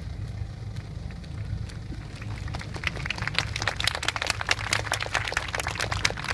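Outdoor audience clapping, building up about two and a half seconds in and then falling off, over a steady low rumble of wind.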